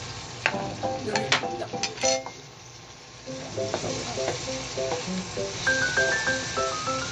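Long green chili peppers and tomatoes sizzling as they fry in a nonstick pan, stirred with a spatula that clinks and scrapes against the pan, mostly in the first two seconds.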